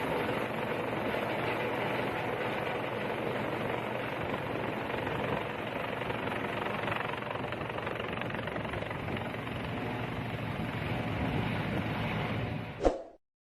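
Rescue helicopter running overhead: a steady, dense engine and rotor noise that cuts off suddenly near the end.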